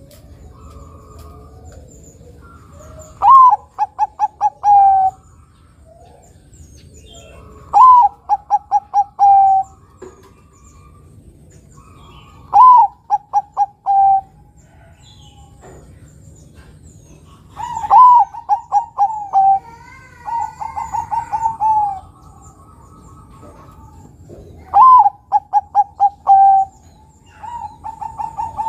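Bangkok-type zebra dove (perkutut) singing its cooing song: about six phrases, roughly every five seconds. Each opens with a note that slides down, then runs into a quick string of short clipped coos and ends on a longer held coo.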